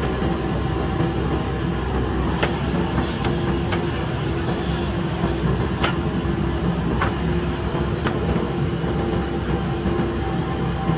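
JCB backhoe loader's diesel engine running steadily with a constant whine over the rumble, and about five sharp knocks spread through it.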